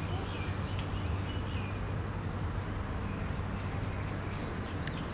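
Outdoor ambience: a steady low rumble under an even background noise, with a few faint bird chirps in the first two seconds.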